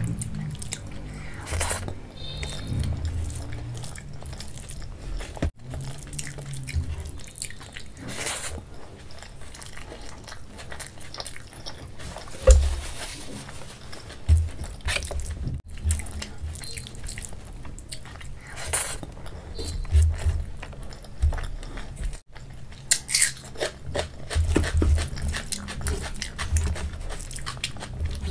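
Close-miked eating sounds: wet chewing and lip smacks of rice mixed with kadhi eaten by hand, with scattered small clicks and squishes from fingers working the rice on a steel plate.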